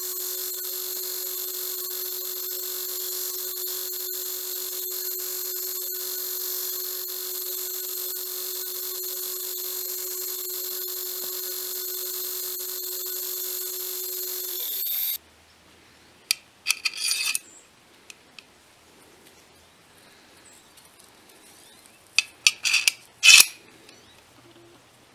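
Belt grinder running steadily with a high sanding hiss as a small copper seppa is ground against the belt. It shuts off about fifteen seconds in and its pitch drops slightly. Near the end, a few sharp metallic clicks and taps come as copper spacers are fitted onto the blade.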